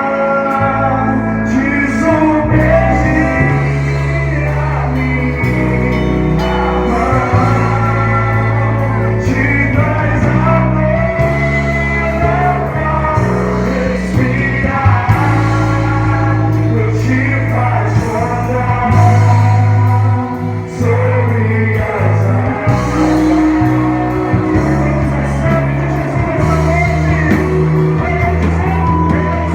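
Live worship band music with singing: a full band with steady bass notes and guitar under the sung melody.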